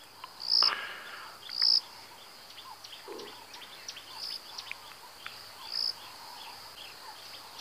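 Outdoor bush ambience: short, high bird chirps every second or two, the two loudest in the first couple of seconds, over a scatter of faint ticking calls from birds or insects.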